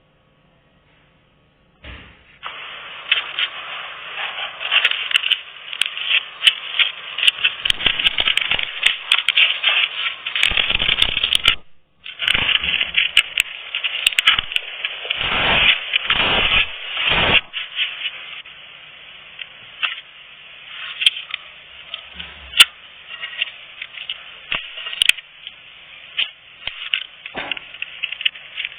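Slime being squished and poked by hand, making a dense run of sticky crackling and popping clicks. It starts about two seconds in and breaks off briefly about twelve seconds in.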